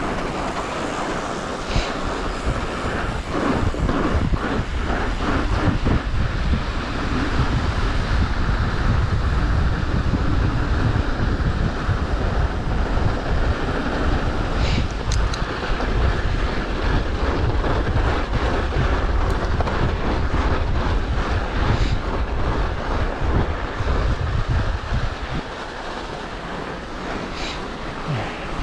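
Wind buffeting the microphone with a heavy low rumble, over the tyre and frame noise of a mountain bike rolling fast down a car-packed snowy road, with scattered clicks and rattles.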